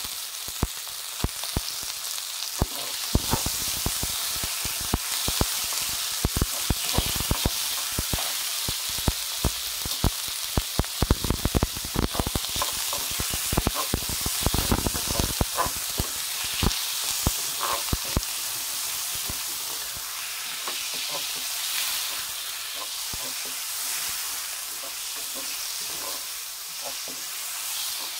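Sliced chicken breast with onion and garlic sizzling in hot oil in a pan, with a wooden spatula scraping and knocking against the pan as it is stirred. The stirring clatter is busiest in the first half and thins out after about eighteen seconds, leaving mostly the steady sizzle.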